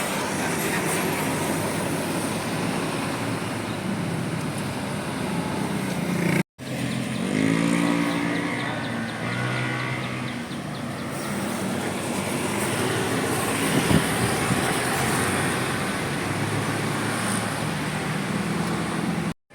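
Road traffic with a large vehicle's engine running. The sound drops out briefly about a third of the way in; right after, an engine's pitch falls and settles into a steady low running tone.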